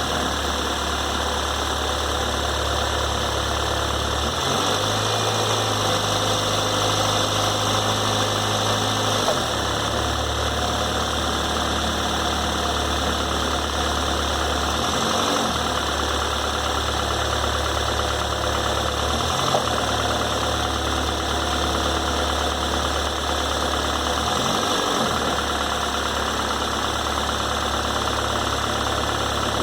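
2006 Toyota Corolla's engine idling steadily, with a new timing belt fitted and its startup noise cured. A low hum under the idle steps up and down in pitch every few seconds.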